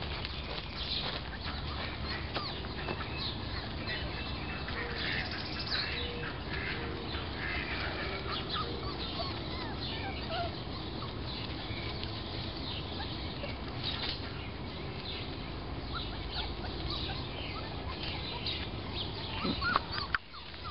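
Outdoor ambience: a steady rustling noise with scattered short, high chirps and squeaks.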